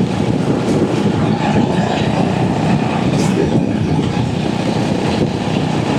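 Steady low rumble of wind and road noise while riding a Royal Enfield Hunter 350 motorcycle, with wind buffeting the microphone.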